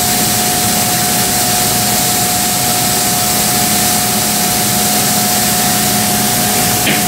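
TRUMPF TRUMATIC L3030 3000 W CO2 laser cutter running while it cuts sheet metal: a loud, steady hiss with a constant whine and a low hum underneath.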